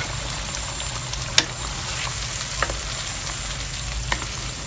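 Blended onion, garlic and ginger paste frying in hot oil in a wok, a steady sizzle as it is stirred with a wooden spatula, with a few sharp clicks now and then.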